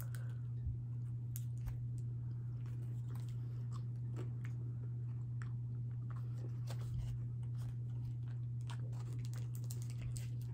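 A person biting into and chewing a Reese's peanut butter cup with potato chips in it, with small crunches and clicks from the chips. A steady low hum runs underneath.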